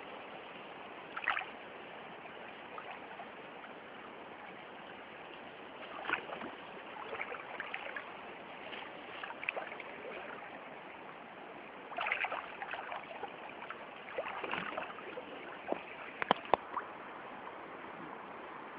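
Steady rush of a river current, with water sloshing and splashing around a person standing chest-deep in it. One louder splash comes about a second in, and a run of splashes follows in the last third.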